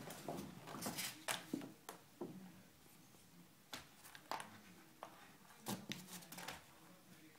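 Tape crinkling and rustling against a cardboard box as a British Shorthair kitten paws and bites at it, in irregular flurries of short crackles and clicks.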